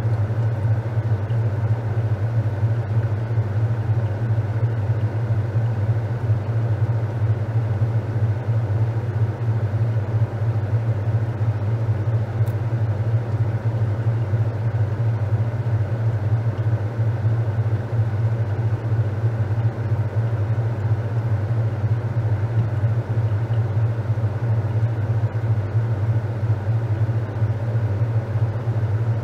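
Top-loading washing machine running steadily, its motor giving a constant low hum under a noisy wash of drum and water sound.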